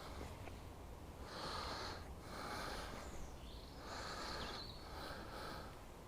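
A person's heavy breathing close to the microphone: rhythmic in-and-out breaths, about one a second.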